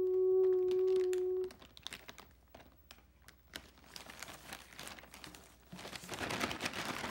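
A person humming one held note, which stops about a second and a half in; then a plastic poly mailer bag rustling and crinkling in scattered crackles as hands work inside it, growing denser and louder in the last second or so.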